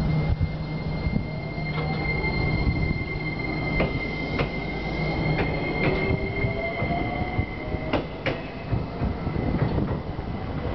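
JR Kyushu 815 series two-car electric train pulling away from the platform and accelerating past: its motors whine, rising in pitch, over a steady low hum and a steady high tone. Sharp clicks and knocks from the wheels come every second or so as the cars roll by.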